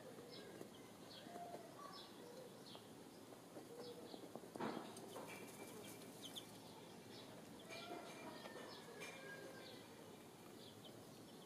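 Faint high bird chirps repeating about twice a second over the soft scratching and rustling of a hen dust-bathing in dry soil and leaf litter, with a brief louder rustle about halfway through.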